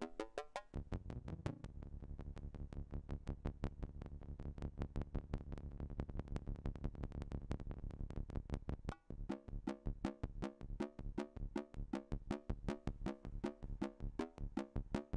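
Buchla 200e modular synthesizer playing a fast, pulse-triggered stream of short pitched notes over a sustained low tone, made by two clocked trigger sequences combined in one patch. About nine seconds in, the pattern changes into a more spaced, alternating rhythm with a pulsing low note.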